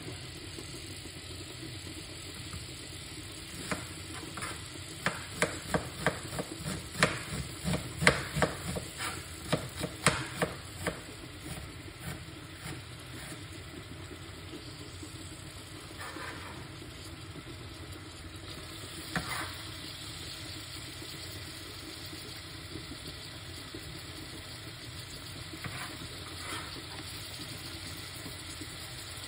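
Sliced white onion sizzling softly in olive oil in an aluminium pot. A run of sharp knocks, two or three a second, comes between about four and eleven seconds in, and there are a few single knocks later.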